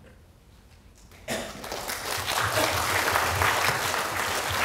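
Audience applauding, starting abruptly just over a second in and swelling to a full, steady clapping.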